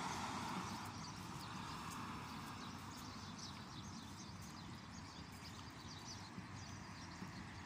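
Outdoor street ambience: small birds chirp over and over against a low traffic rumble, and a passing vehicle fades away in the first second or two.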